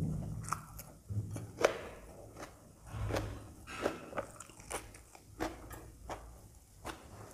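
Close-miked chewing of puri with dum aloo, the spicy potato curry: irregular mouth clicks and smacks, several a second, with a low thud of the jaw working.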